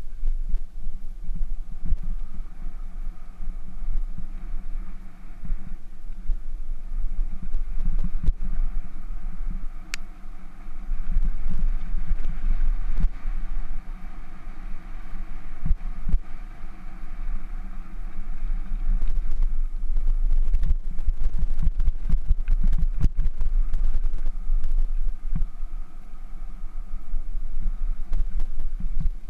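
Bicycle riding over a rough gravel trail: a continuous low rumble of tyres and frame vibration, broken by frequent knocks and rattles as the wheels hit stones and bumps.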